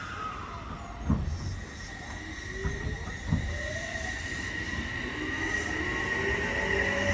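Odakyu Line electric commuter train pulling out and accelerating past, its motor whine rising in pitch and growing louder. A steady high squeal runs throughout, and there are two low thuds, about a second and about three seconds in.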